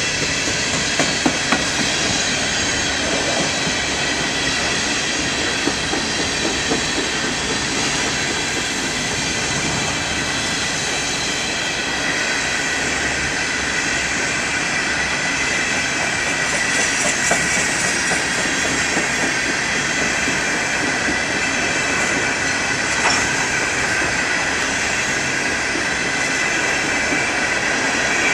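Empty coal hopper cars of a freight train rolling past: a steady rumble and rattle of wheels on the rails, with high squealing tones from the wheels and a few sharp clanks.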